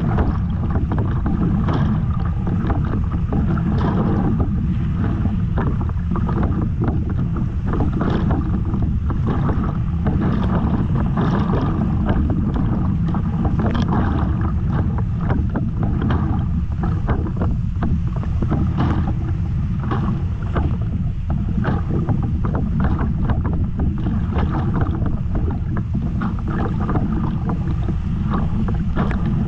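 Whitewater rapids of a river in high flow (430 m³/s) rushing loudly around a kayak, with frequent short splashes from the paddle and waves. Wind and water buffet the camera microphone, giving a heavy low rumble.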